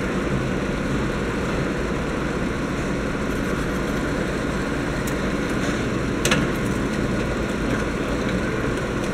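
Drill press motor running steadily while a quarter-inch bit drills out a plugged hose-barb hole in a plastic reservoir bottle, with a couple of light clicks about five and six seconds in.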